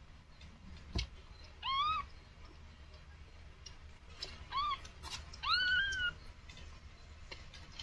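Newborn kitten mewing three times: short, high-pitched cries that rise in pitch, the last one the longest. A faint knock sounds about a second in.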